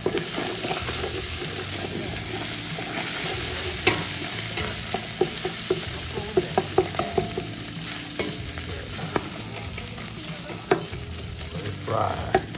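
Lean ground beef frying in butter in a steel pot, a steady sizzle now that the meat's liquid has cooked off and only fat is left. A spoon stirring and knocking against the pot, with the clicks coming thickest in the middle.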